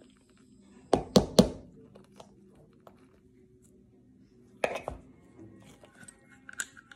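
Three sharp knocks in quick succession about a second in, then a shorter clatter near five seconds: the parts of a disassembled HK P30 pistol and hand tools being handled and knocked on a work table.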